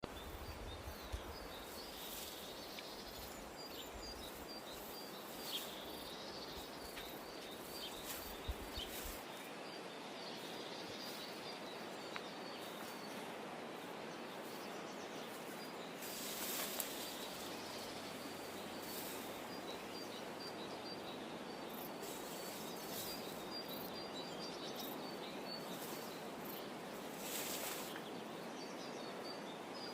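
Outdoor nature ambience: a steady hiss with a thin, high chirping repeated several times a second through most of it, and a few brief louder rustles.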